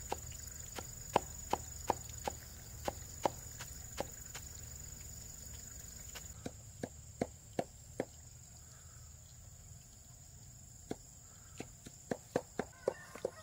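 Knife chopping on a cutting board: irregular sharp strokes, about two a second, with a few pauses and a quicker run near the end.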